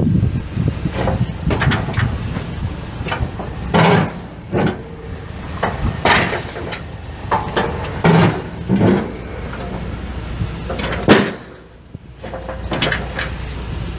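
A 2006 Chevrolet Silverado 3500's 6.0-litre gas V8 running steadily, with a string of sharp clunks and thuds like doors or panels being opened and shut. The loudest clunk comes about eleven seconds in; the running sound then drops briefly and comes back.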